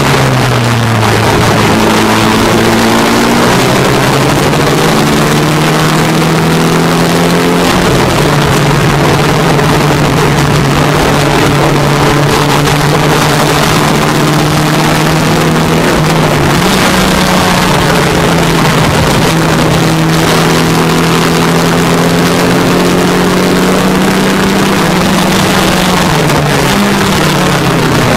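A vintage sports racing car's engine at racing speed, heard from inside the open cockpit with wind rushing past. Its note drops just after the start, steps up about eight seconds in, dips and recovers about halfway through, and drops again near the end as the driver shifts and lifts through the corners.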